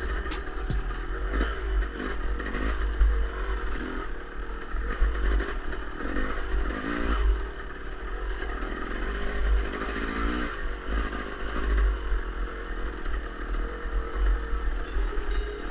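1996 Yamaha YZ250 single-cylinder two-stroke dirt bike engine being ridden, its pitch rising and falling repeatedly as the throttle is worked, over a constant low rumble.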